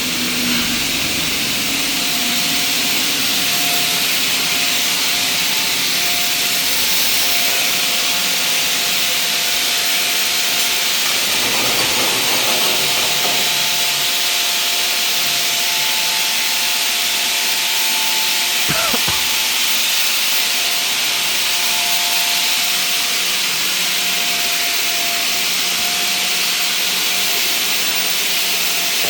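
Soybean hammer-mill pulverizer running, a steady loud rushing hiss with a faint whine from the machine.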